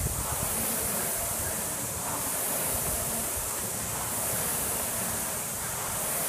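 Concept2 rowing machine's air-resistance fan flywheel spinning, a steady whooshing rush of air.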